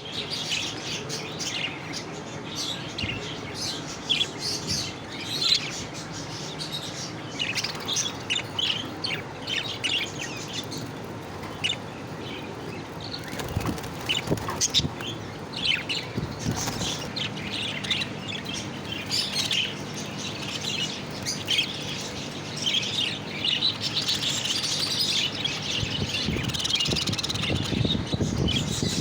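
Lovebirds chirping and chattering: many short, high chirps one after another throughout, getting busier near the end.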